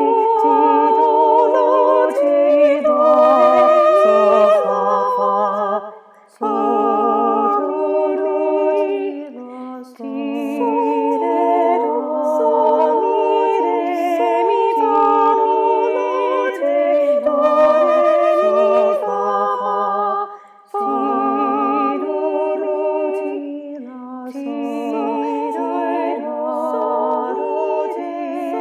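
Voices singing a canon a cappella in solfège syllables, several parts overlapping at different pitches, with two brief pauses about six and twenty seconds in.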